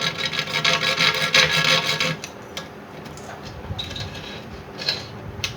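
Hard scraping rub against wood for about two seconds, then a few light knocks and clicks.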